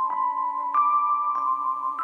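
Background music: a gentle melody of struck, bell-like notes, a new note about every two-thirds of a second, each ringing on over the next.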